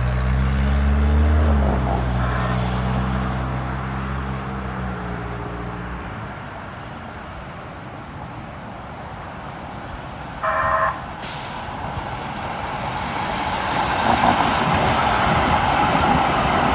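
Street traffic at a light rail line: for the first few seconds a heavy road vehicle's engine runs, dropping in pitch. About ten seconds in there is a short pitched tone and a brief hiss, and then a rumble builds steadily, typical of a Kinkisharyo light rail train approaching.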